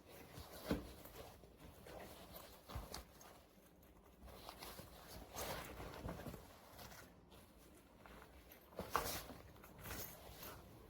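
Irregular soft knocks, taps and rustling, typical of a fabric backpack being handled, with a couple of sharper knocks.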